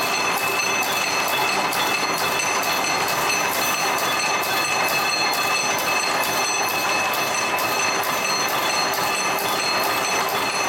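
Barbed wire machine running steadily: a fast, regular metallic clatter with a constant high whine over it.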